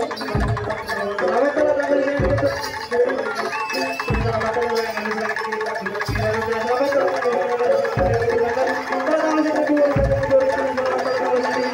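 Live traditional Javanese ensemble music: a deep drum stroke about every two seconds under a wavering melody line and busy hand-drum patterns.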